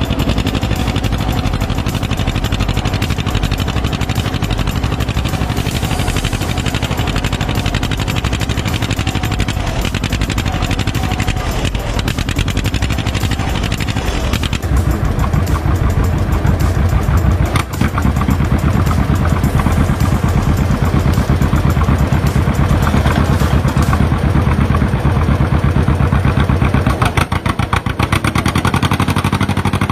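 Vintage farm tractor engines running hard under load while pulling a weight sled, a steady rapid firing beat. The engine sound changes abruptly about halfway through and again a few seconds before the end.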